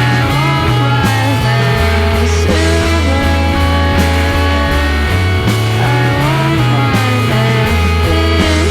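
A rock band playing live: a heavy bass line changing notes in rhythm, melodic lines above it that slide and waver in pitch, and drum hits about once a second.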